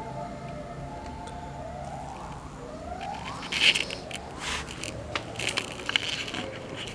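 A siren sounding: held tones that fade out, then two rising glides in pitch. From about three and a half seconds in, irregular bursts of crackling and rubbing noise, the loudest just after they start.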